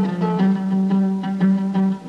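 Instrumental interlude of an Arabic song: an oud plucking a quick melodic line over held lower notes.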